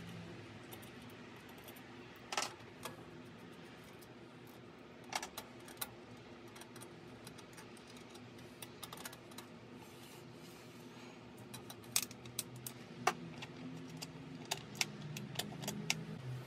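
Small metal nuts, bolts and hand tools clinking as hardware is handled and fitted to the underside of a motorcycle solo seat pan: scattered sharp clicks, busier near the end, over a faint steady hum.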